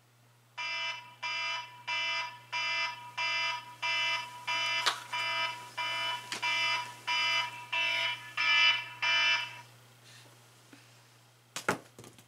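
Electronic wake-up alarm beeping, a fast regular beep of about one and a half a second, a dozen or more times, then stopping. A couple of sharp knocks near the end.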